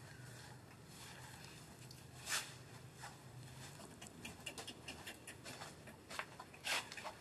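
Dry leaf litter rustling and crackling as monkeys scuffle on it: a scatter of short crackles, with one louder crackle a little over two seconds in and another near the end.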